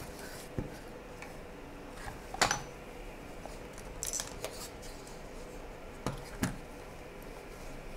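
Hands unwrapping a cloth-wrapped wooden tray and makeup pouch: a handful of light, sharp clicks and knocks, spaced a second or two apart, as the pieces are handled and set down.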